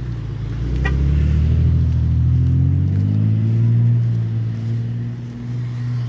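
Car engine accelerating, its pitch rising over a couple of seconds, then easing off toward the end.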